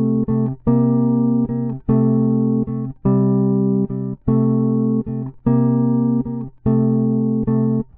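Electric bass guitar, finger-plucked, playing a blues riff of two-note chords (double stops) that adds a flat-seventh top note. Long ringing chords alternate with short plucked notes in an even repeating pattern.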